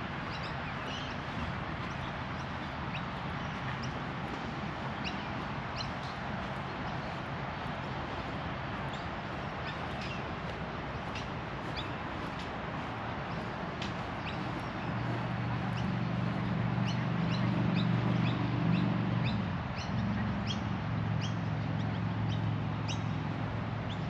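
Birds chirping over a steady rushing background. About fifteen seconds in, a low mechanical hum swells up, is loudest a few seconds later, and then eases a little.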